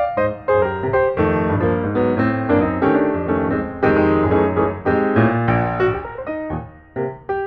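Background piano music: a light melody with chords.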